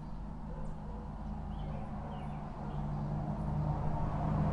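A car on a nearby street approaching, its engine and tyre rumble growing louder toward the end. A few faint bird chirps come through about halfway.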